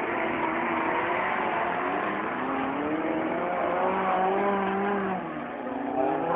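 Several dirt-track cross race cars running hard on gravel, their engines revving, with pitches climbing and falling as the drivers accelerate and lift. About five seconds in the revving eases briefly, then climbs again.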